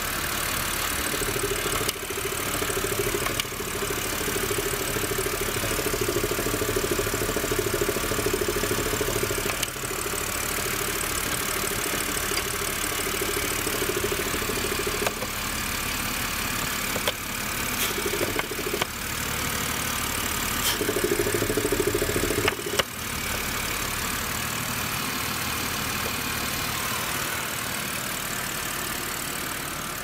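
BMW N52B30 3.0-litre inline-six idling with its oil filler cap open, and a steady hiss of air drawn into the filler neck by the crankcase vacuum from the crankcase ventilation (KGE). A few sharp clicks and knocks from handling the cap, the clearest about three quarters of the way in.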